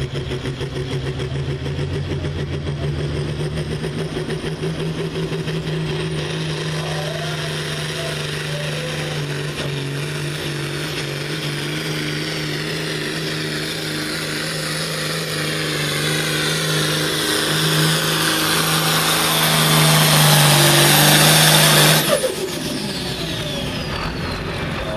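Turbocharged diesel engine of a John Deere light super stock pulling tractor running flat out under load as it drags a weight sled, with a high turbo whine over the engine note. It grows louder, then cuts off sharply near the end as the throttle is dropped at the end of the pull, the whine falling away.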